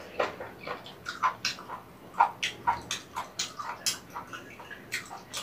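Close-miked eating sounds of soupy rabokki, ramen noodles and rice cakes: a quick, irregular run of short wet mouth smacks and chewing clicks, several a second.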